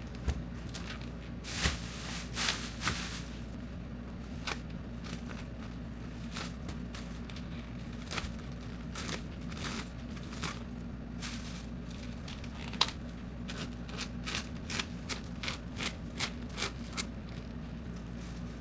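Plastic wrap and packaging being handled, rustling and crinkling in short irregular bursts with light clicks, over a steady low hum.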